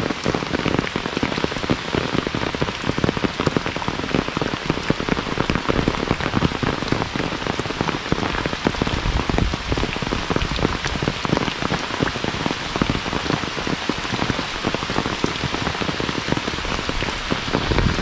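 Heavy rain falling steadily, a dense spatter of countless drop hits.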